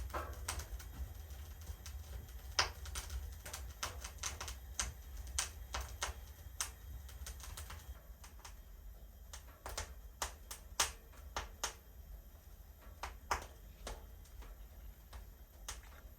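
Irregular sharp clicks and snaps, several a second, growing sparser after about eight seconds, over a low steady rumble.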